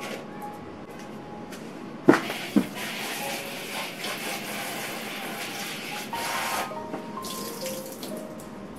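Two sharp knocks, then water running from a tap into a sink for about four and a half seconds before it stops.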